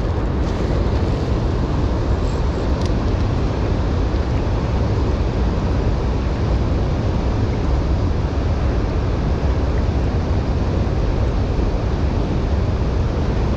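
Steady rush of turbulent river water in the tailwater below a dam with its gates partly open, with a deep, fluttering rumble underneath.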